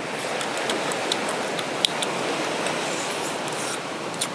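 Steady wash of ocean surf, with scattered sharp clicks of crab shell being cracked and chewed, the loudest a little under two seconds in.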